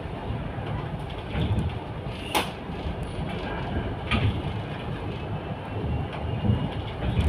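Steady low rumble of the small boat's diesel engine, swelling and easing unevenly. A sharp click sounds about two and a half seconds in, and a lighter one about four seconds in.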